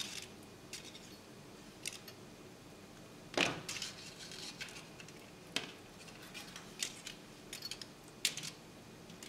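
Fine 30-gauge beading wire being wrapped tightly around a bundle of wire stems: faint, irregular small metallic ticks and scrapes, with a few louder clicks, the loudest about three and a half seconds in.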